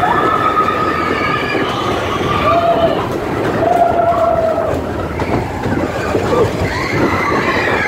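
Mine-train roller coaster running at speed: a loud, steady rumble and clatter of its wheels on the track, with a few short held high tones over it.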